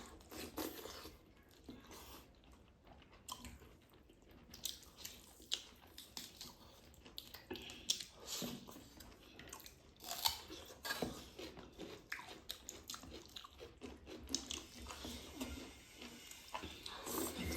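Close-up eating sounds: chewing and mouth smacks with scattered short clicks, as rice and curry are eaten by hand.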